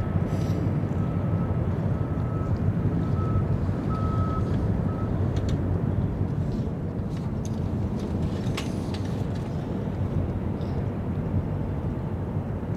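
Steady low rumble of harbour background noise, with a faint steady high whine through the first five seconds or so.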